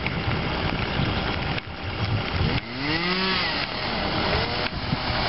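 Chainsaw revving up and back down about three seconds in, and rising again near the end, over a steady rushing noise. It is cutting up storm-downed trees.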